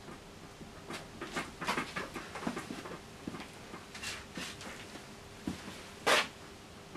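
Palette knife scraping and tapping oil paint on a palette while mixing a colour: a run of short, irregular scrapes and clicks, then one louder scrape about six seconds in.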